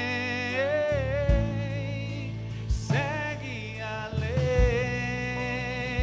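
Christian worship song: a single voice holds long, wavering sung notes over steady sustained accompaniment, with a few low beats.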